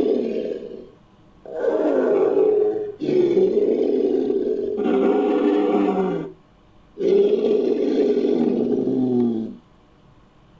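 Designed dinosaur calls for a Datousaurus, layered from Diplodocus and sauropod sound effects: a series of long, deep, pitched calls of one to three seconds each, separated by short pauses, with some calls dropping in pitch as they end.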